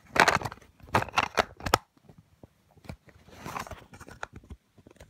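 Close handling noise: rustling with sharp clicks and taps, strongest in the first two seconds, then a softer rustle and a few scattered clicks.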